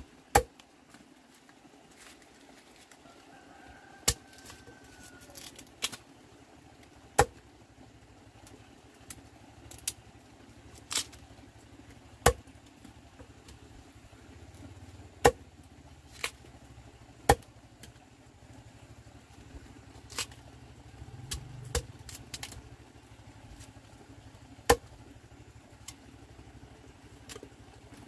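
Large knife chopping through fresh bamboo shoots on bare ground: sharp single chops at an uneven pace, about one every second or two, over a faint steady low hum.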